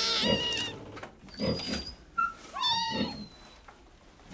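A cat meowing three times, high-pitched cries about a second apart, the last one falling in pitch.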